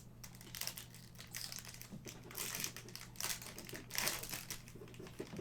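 Plastic wrapper of a trading-card pack crinkling as it is handled and opened, in a string of short rustles.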